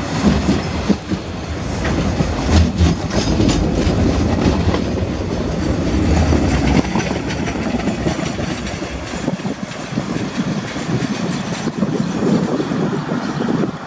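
Freight train's container wagons rolling past close by, wheels clicking over the rail joints with a steady rumble. The deep rumble thins out in the second half as the last wagon goes by and the train draws away.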